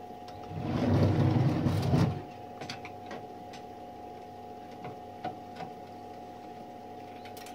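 Small metal clicks and clinks of typewriter parts and screws being handled while the machine is dismantled, over a steady hum. A louder rushing noise rises for about a second and a half near the start.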